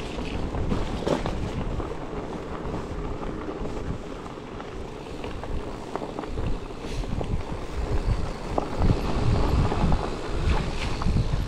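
Bicycle riding over a rough trail with wind buffeting the microphone, giving a steady low rumble. Scattered clicks and knocks from the bike come through, with a few sharper ones about a second in and near the end.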